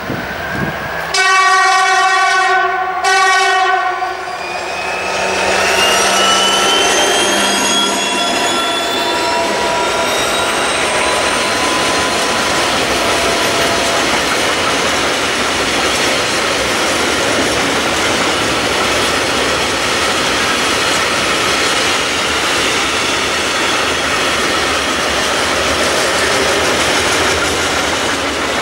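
Freight train passing close by: the locomotive sounds its horn twice, a longer blast about a second in and a short one near four seconds, then a rising whine as it passes, followed by a long string of tank wagons rolling by with a steady rumble and clatter of wheels on the rails.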